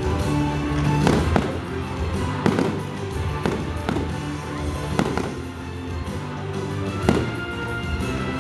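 Fireworks going off in a string of sharp bangs, several a second apart, over loud show music.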